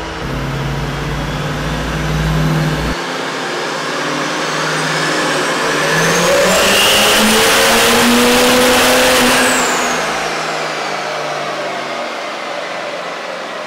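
Duramax 6.6-litre V8 turbo-diesel pickup at full throttle on a chassis dyno: the engine climbs under load with the compound twin turbochargers' whistle rising steadily in pitch. It is loudest about seven to nine seconds in, then falls away as the throttle comes off.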